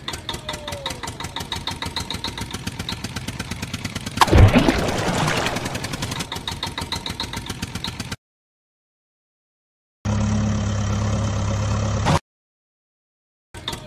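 Dubbed-in engine sound effect running with a rapid, steady putter, with a louder surge about four seconds in. It cuts to dead silence twice, and a deeper, smoother engine hum plays between the gaps.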